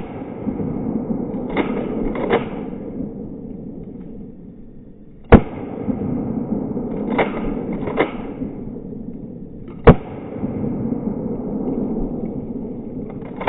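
Three loud shotgun shots firing #8 birdshot, about five seconds apart, each with a long fading report. Between shots come two sharp clicks less than a second apart.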